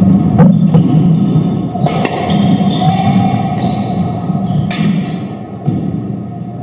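Doubles squash ball struck by racquets and smacking off the court walls during a rally: a handful of sharp, irregularly spaced hits. Short squeaks of court shoes on the wooden floor come in between them.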